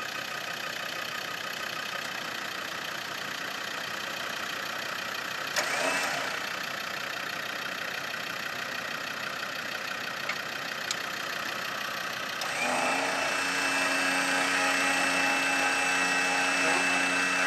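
Electric winch on the front bumper of a 4x4, under a steady background of the vehicle's engine idling. The winch motor gives a short burst with a rising pitch about six seconds in. From about twelve seconds it runs continuously with a steady, louder whine.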